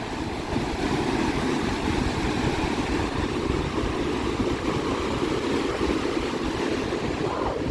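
Steady wash of large lake waves breaking on the beach, with wind buffeting the microphone as a constant low rumble.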